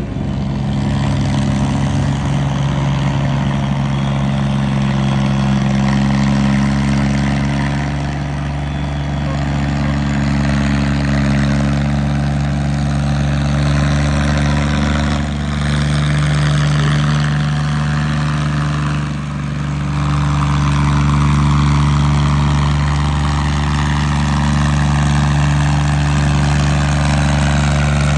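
Farmtrac tractor's diesel engine running steadily while hauling a heavily loaded sugarcane trolley, its low engine note holding even throughout.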